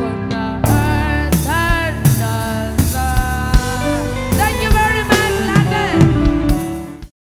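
Live band music: a woman singing into a microphone over acoustic guitar and drums. The band comes in fuller a little under a second in, and the music cuts off abruptly near the end.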